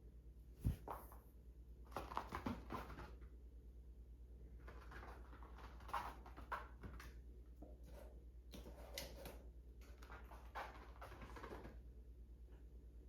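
A sharp knock, then scattered light clicking and rustling of things being handled, over a steady low hum.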